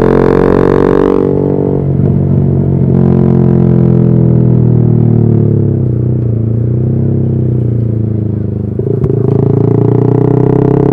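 Yamaha R15 V3's 155 cc single-cylinder engine through a custom aftermarket exhaust, under way. The engine note drops about a second in as the throttle closes, sinks lower through the middle, then dips briefly near nine seconds before rising again as it accelerates.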